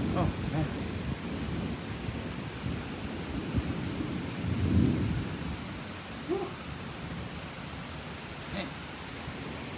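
Steady rain falling during a thunderstorm, with low thunder rumbling. The thunder dies away in the first second and swells again briefly about five seconds in.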